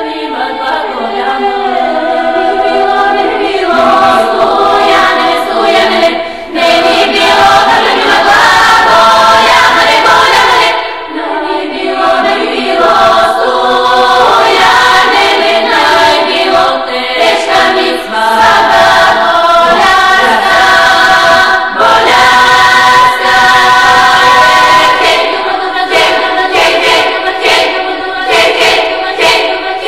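A choir singing a cappella, several voices holding notes together and moving from chord to chord.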